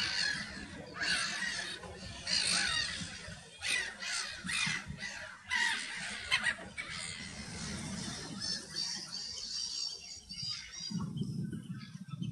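Flock of black-tailed godwits calling: many short calls overlapping in a busy chatter, thinning to fainter, higher calls in the second half.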